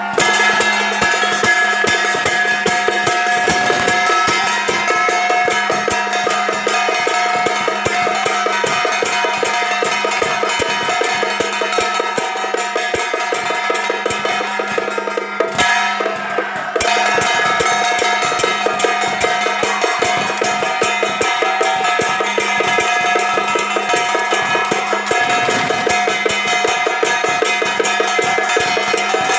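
Traditional temple-procession percussion: a big drum beaten fast and without pause together with gongs and cymbals, steady ringing metallic tones held over the rapid strokes. The beating breaks off briefly about 16 seconds in.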